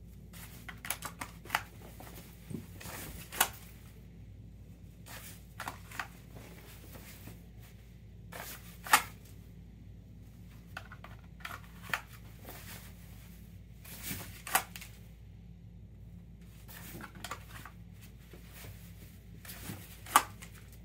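Pistol with a mounted weapon light being drawn from and pushed back into a Phlster Floodlight Kydex inside-the-waistband holster: sharp plastic clicks and snaps come one at a time, the loudest about halfway through and near the end, with shirt fabric rustling in between.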